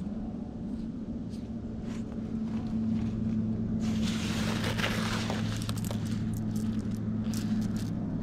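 A hand rummaging in a cloth pouch, with the rustle starting about four seconds in, followed by steel slingshot balls clicking against each other as they are scooped into the palm. A steady low hum runs underneath.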